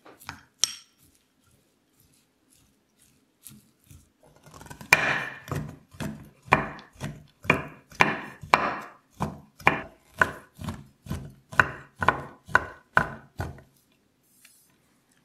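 A few light clinks of a spoon in a glass bowl, then a large kitchen knife chopping a bar of dark chocolate on a wooden cutting board: a steady run of cuts, about two a second, that stops near the end.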